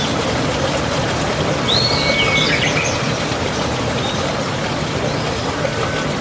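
A wild bird calling: one short phrase of a quick up-and-down whistle, a held note and a cluster of short chips about two seconds in, with a fainter call later. Under it runs a steady rushing background noise.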